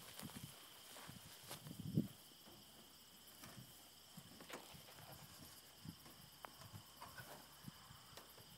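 Faint handling noise from the hinged wooden and corrugated-metal roof and wall panels of a small fold-open telescope shelter being closed by hand. There are scattered light knocks and clicks, with one low thump about two seconds in.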